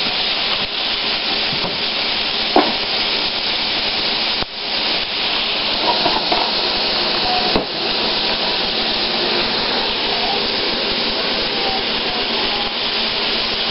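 Sliced onions sizzling in olive oil in a stainless steel frying pan, a steady hiss, with two short knocks about two and a half and seven and a half seconds in.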